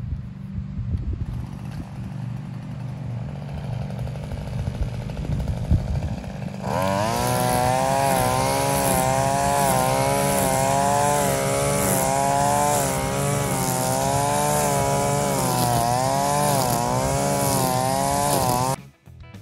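Maruyama BT230L two-stroke string trimmer running at low speed, then throttled up about a third of the way in and running fast, its pitch wavering up and down as the line cuts grass. It cuts off suddenly near the end.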